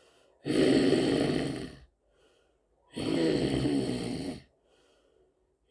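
A person snoring: two long, loud snores about two and a half seconds apart, with faint breathing between them.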